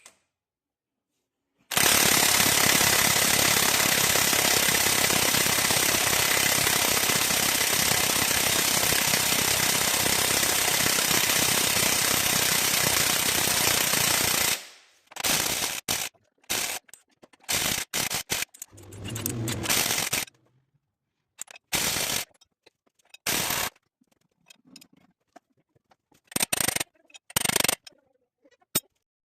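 Impact wrench hammering steadily on a tight cutter-bar bolt for about thirteen seconds. It is followed by a string of short bursts, as in quick trigger pulls, while the bolt loosens.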